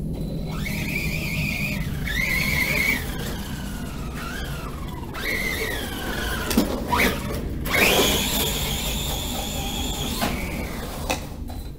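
Brushless electric motor of a Remo Hobby Dinosaurs Master 5 RC monster truck, running on a 3S battery, whining as it is driven. The high whine climbs and falls in several throttle bursts, with a sharp rising sweep and its loudest run about seven to eight seconds in.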